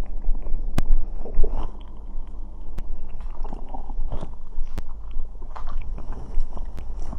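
A person's stomach gurgling and rumbling in irregular bursts, heard close up, as the cider just drunk is digested. Four sharp clicks come about two seconds apart.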